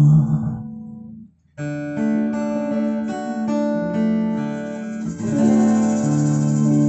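Live band music led by an acoustic guitar: the music fades and stops briefly about a second and a half in, then the guitar comes back in with picked notes and a fuller strummed chord about five seconds in.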